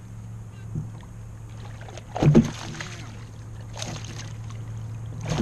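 Water splashing and knocks at the side of a small boat as a hooked largemouth bass is fought close in, loudest about two seconds in, over a steady low hum.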